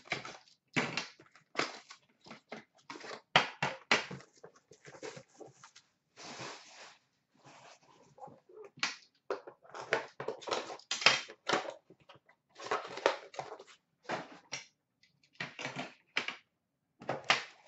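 Cardboard packaging of an Upper Deck The Cup hockey box handled and opened: a rapid string of crackles, scrapes and knocks as the outer box is slid off its metal tin, with one longer scrape about six seconds in. The tin is then set down and handled on a glass counter.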